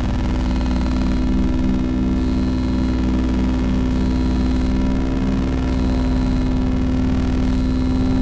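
Electronic noise drone from a Murmux synthesizer and a vintage pulse generator: a dense, buzzing stack of steady tones with a low throbbing pulse about twice a second. A high tone comes and goes every second or two.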